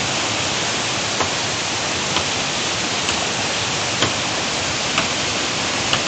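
Waterfall pouring down a rock face close by, a steady dense rushing hiss, with faint ticks about once a second.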